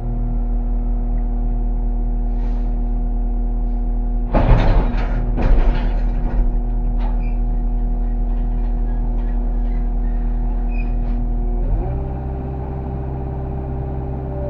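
Bobcat E85 excavator's diesel engine running steadily at a lower speed, then revving back up about twelve seconds in, heard from the cab while the machine is stuck in soft mud. Two loud clanking, clattering bursts come between about four and six seconds in.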